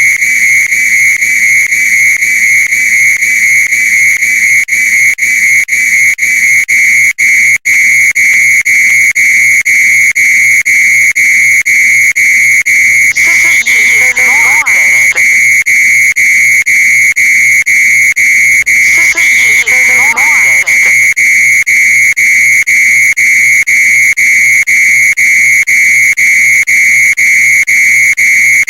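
Fire alarm sounding: a loud, high-pitched electronic tone that runs continuously with quick, regular breaks.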